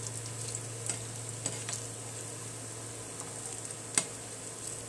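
Banana fritters deep-frying in hot oil: a steady sizzle with scattered crackles and a low hum underneath, as a spatula turns them in the pan. About four seconds in the spatula knocks sharply against the pan once.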